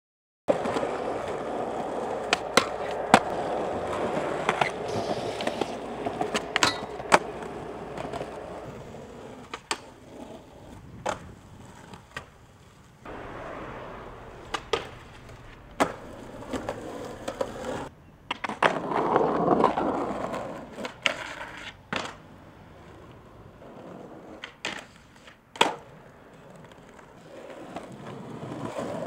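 Skateboard wheels rolling on concrete, broken again and again by sharp clacks of the board popping and landing.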